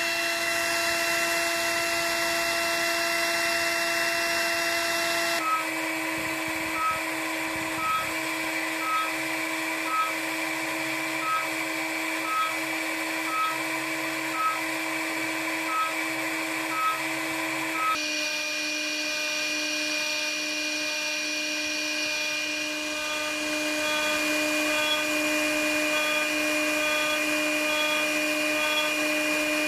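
CNC router spindle running steadily while milling a hardwood blank with a 6 mm radius cutter, its whine carrying a cutting note that pulses about once a second. The pitch shifts slightly twice.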